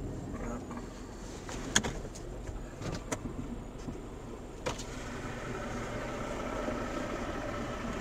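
Vehicle running, heard as a steady low road-and-engine noise, with three sharp clicks or knocks in the first half. A steadier engine tone comes in about five seconds in.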